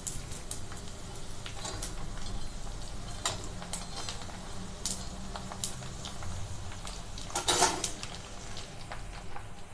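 Sago murukku deep-frying in hot oil in a steel kadai on a medium flame: a steady sizzle with scattered crackles. A metal skimmer clinks and scrapes in the pan, with a louder stir about three-quarters of the way in.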